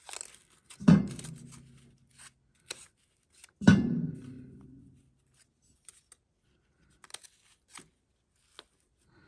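Brass parts of an Aladdin oil lamp knocked together twice, each a sharp clack followed by a short low ringing that fades over about a second, with small clicks and rustles of the burner and new round wick being handled between them.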